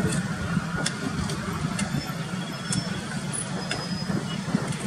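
Steady low engine rumble with a few faint clicks.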